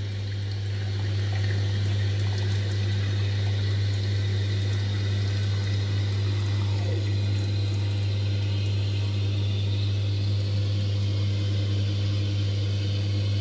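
Toilet cistern refilling through a Siamp inlet valve after a flush: a steady hiss of inflowing water over a steady low hum.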